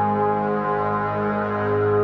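Ambient background music of sustained, held chords.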